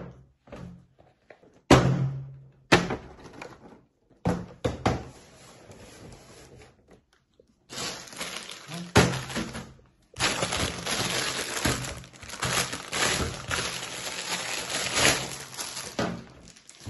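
Rubber dinosaur hand-puppet heads knocked and set down on a table, a few separate thunks. About eight seconds in, a long spell of rustling handling noise follows, like plastic packaging being worked.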